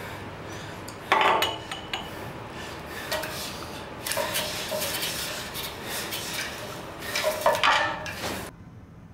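Fingers rubbing and squeaking across a glass pane in several strokes, with short pauses between them; the sound cuts off suddenly near the end.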